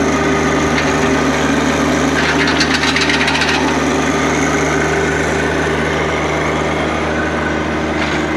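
John Deere compact tractor engine running steadily while the front loader and grapple are worked, with a rough scraping rasp about two seconds in that lasts a second or so.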